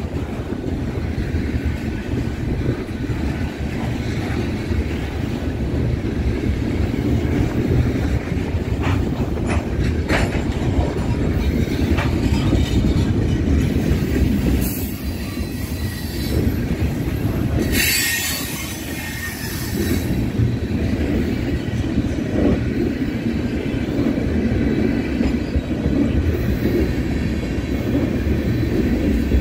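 BNSF freight train cars rolling past with a steady low rumble and wheel clatter over the rail joints. Midway there are short bursts of high squealing from the wheels on the rails.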